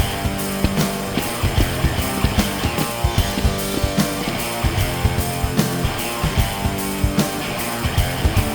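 Rock background music with guitar and a steady drum beat.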